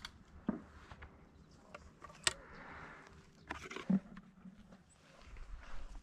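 Handling and movement noise in dry grass: scattered soft clicks and rustles, with a low rumble of wind on the microphone near the end.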